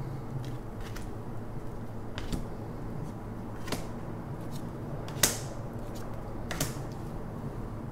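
Tarot cards being dealt onto a wooden table: a scattered series of light taps and slaps, the sharpest about five seconds in.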